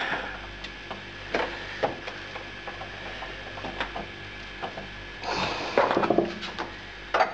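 Hands screwing a beer line fitting onto the back of a tap shank in a fridge door: scattered light clicks and knocks, then a louder stretch of rattling clatter about five seconds in.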